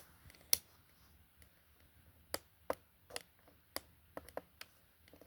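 A series of sharp plastic clicks at irregular intervals from the alarm on/off switch of an Advance 3373 alarm clock being worked back and forth; the switch is finicky.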